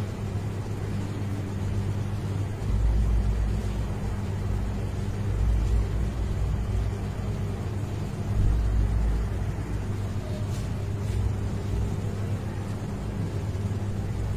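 A steady low hum, with a few louder low rumbles coming and going.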